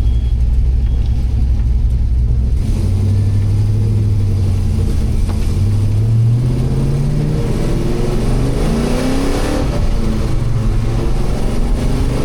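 A 6.0 LS V8 with a Truck Norris camshaft, idling at about 1,000 RPM at a stop, a little high. Then the revs climb as the car pulls away, with a brief ease-off around six seconds in, and climb again before levelling.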